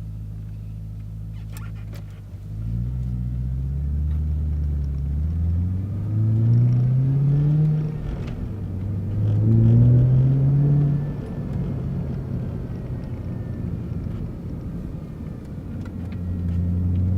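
Ford Falcon XR8's Boss 260 V8 idling, then pulling away: the engine note rises for several seconds, drops at a gear change about 8 s in, rises again, then settles to a steadier cruise and climbs once more near the end.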